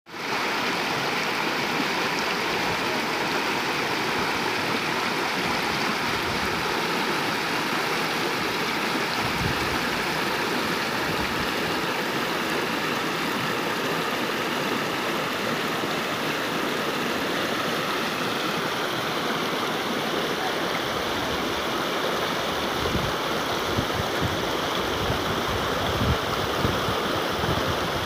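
Shallow mountain stream rushing and splashing over rocks in a steady, continuous wash of water noise, with a few brief low thumps now and then.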